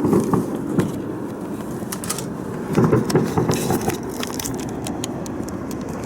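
Distant explosive booms rumbling and echoing across the city, swelling just after the start and again about three seconds in, with sharp crackling pops throughout. No flash is seen; the source is taken for fireworks or a demolition-like explosion.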